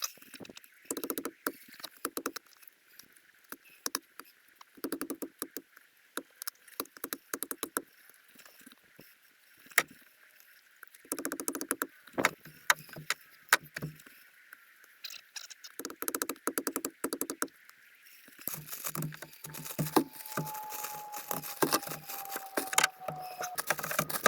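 Sped-up butchering sounds of a knife and hands working a goat carcass: many rapid clicks, knocks and scrapes in quick clusters.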